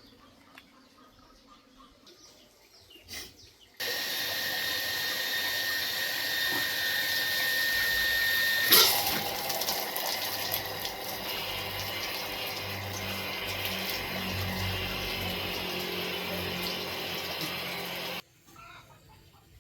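Loud rushing water that starts and stops abruptly, with a steady high whine in its first part that ends at a sharp knock, after which a low hum comes in.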